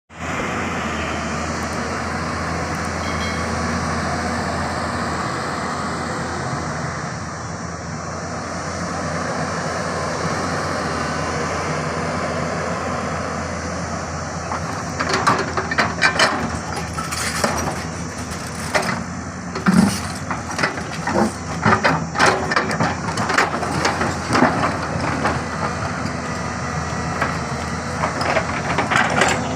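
Diesel engine of a Hyundai R210 Smart Plus 21-ton crawler excavator running steadily; from about halfway, a rapid series of metallic clanks and knocks joins in as the machine works.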